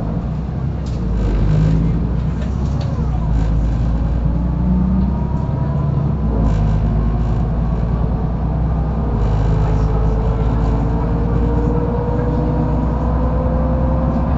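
Mercedes-Benz O530 Citaro facelift bus heard from inside while driving: a steady low rumble of engine and road, with a whine that rises slowly in pitch during the second half as the bus picks up speed.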